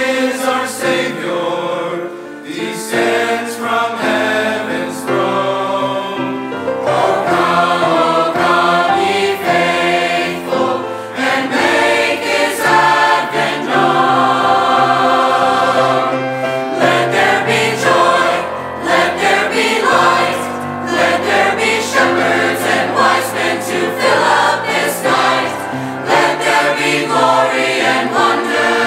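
Mixed choir of men and women singing together, holding long notes.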